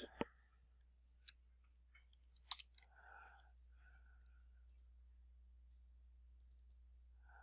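Faint, scattered computer mouse clicks, a handful of short sharp ticks spread over several seconds, against a very quiet room tone.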